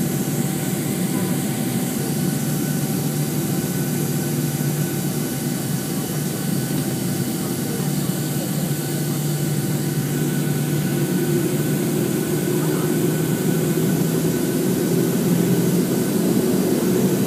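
Boeing 737-800's CFM56 jet engines heard from inside the cabin while taxiing: a steady low hum and rush with a thin steady whine, growing slightly louder over the last few seconds.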